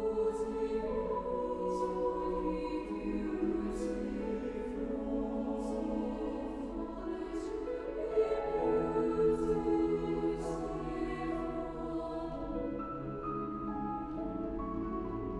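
Mixed high school choir singing sustained chords, with the singers' crisp "s" consonants hissing through together at intervals. The upper voices and consonants thin out near the end.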